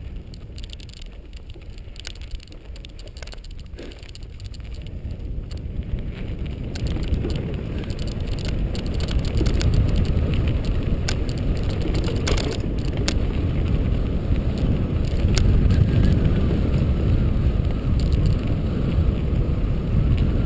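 Mountain bike riding on dirt single-track: wind buffeting the GoPro microphone and tyre noise over the trail, with scattered clicks and rattles from the bike. The noise grows louder from about four seconds in and then holds.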